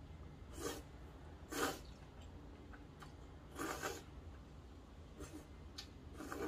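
Slurping cold buckwheat noodles from chopsticks: a series of short noisy slurps, the loudest about a second and a half in, with smaller mouth noises near the end.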